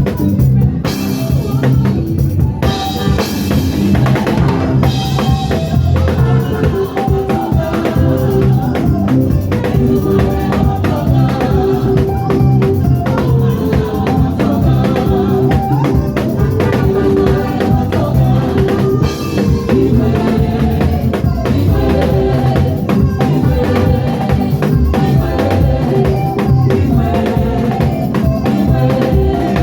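Gospel praise-and-worship band playing instrumentally: a drum kit with kick drum and snare hits over a heavy bass line, with held notes in the middle range.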